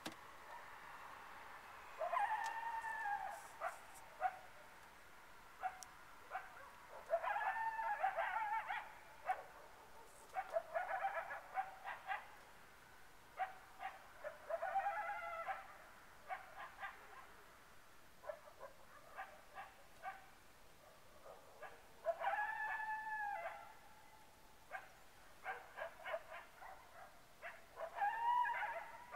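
A canine animal, which the uploader takes for a coyote or a dog, calling in the dark: about five long cries that rise and fall in pitch, with many short sharp yips and barks between them.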